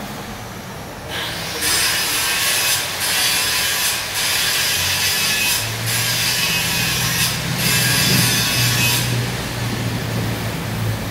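Electric arc welding on steel: a steady crackling, frying hiss that starts about a second in and is broken by a few brief gaps. A low hum joins about halfway.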